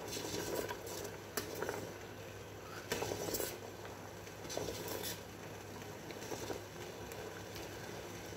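Steel spoon scraping and clinking against the bottom and sides of a steel pot in irregular strokes, stirring milk reduced to thick khoa, kept moving so it doesn't stick and brown. A faint low hum sits underneath.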